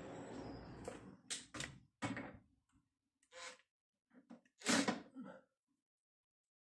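Handling noise from fitting a wheel onto a lawn mower's front axle bolt: a rustling scrape at first, then a few separate knocks and clunks, the loudest a little under five seconds in.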